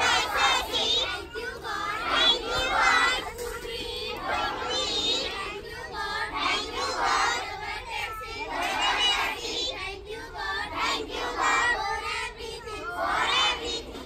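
A group of children chanting a prayer together in unison, many voices singing in short phrases.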